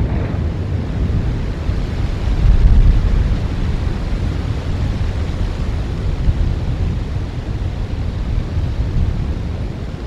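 Wind buffeting an outdoor camera microphone: a loud, gusty low rumble that swells strongest about two to three seconds in.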